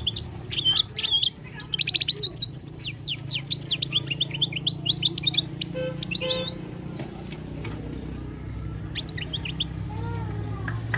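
European goldfinch singing a rapid run of twittering, sweeping notes for about six seconds, then going quiet apart from a few short notes near the end.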